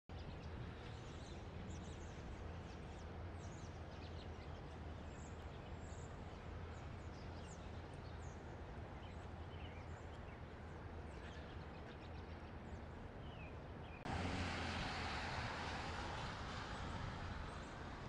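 Outdoor ambience: a steady low rumble with faint, scattered high chirps of small birds. About fourteen seconds in, the background abruptly becomes louder and hissier.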